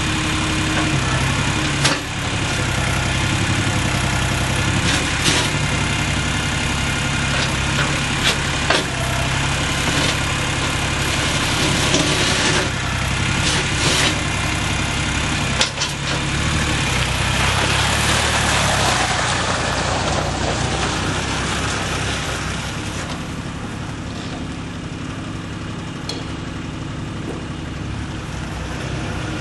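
Diesel engine of a 4WD farm tractor running, its note shifting up and down, with several sharp clicks or knocks in the first half. The engine gets a little quieter after about two-thirds of the way through.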